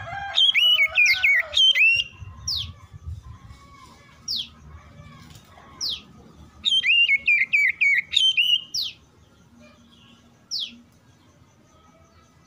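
Oriental magpie-robin singing. There are two quick phrases of varied whistled notes, one at the start and one a little past halfway, with single sharp falling whistles every couple of seconds between and after them.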